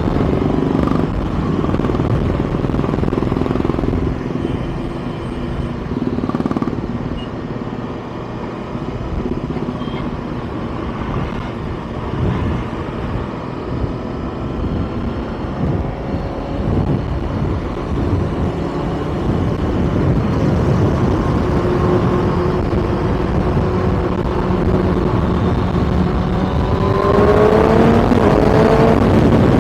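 Kawasaki ZX-6R inline-four engine running under way, over a steady rush of wind noise. Near the end the engine pitch climbs quickly as it accelerates hard.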